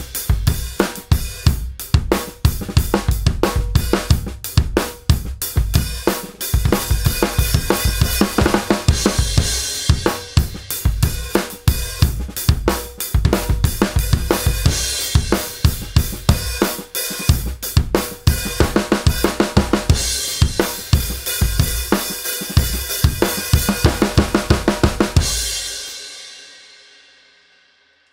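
Drum kit played in a steady groove, showing off a 20-inch Rogers Powertone bass drum tuned to an inverted major third: a tight batter head and a loose front head at E flat for low-end punch. Snare, hi-hat and cymbals play along with it. The playing fades out near the end.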